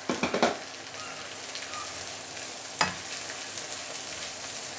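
Sliced meatballs and ground shallot-garlic-candlenut paste sizzling in hot oil in a wok while being stirred with a plastic spatula. A few quick knocks of the spatula against the pan at the start, and one sharper knock nearly three seconds in.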